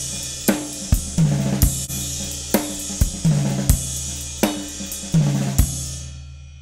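DW Mini Pro drum kit (16-inch kick, 12-inch snare, 10-inch tom, 13-inch floor tom) played in a steady groove with cymbals, the kick drum EQ'd with a bass boost. The playing stops about six seconds in and the drums and cymbals ring out.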